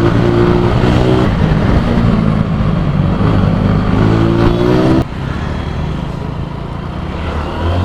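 Motorcycle engine revving, its pitch climbing for about a second and a half before dropping abruptly about five seconds in, then running on at a lower, steady pitch.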